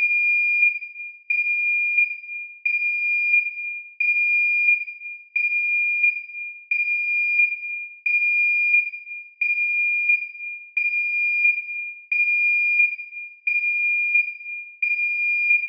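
Electronic alarm sounding a high, steady-pitched beep that repeats about every 1.3 seconds, each beep held briefly and then fading out before the next.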